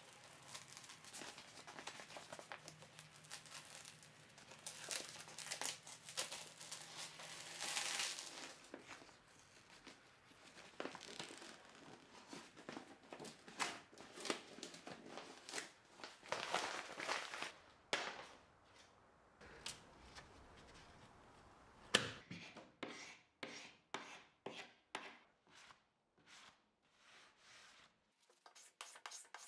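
A crinkly covering sheet peeled back and pulled off a dresser top coated with paint stripper, giving irregular tearing, crumpling rustles. In the last third it gives way to a run of short, even strokes, about three a second.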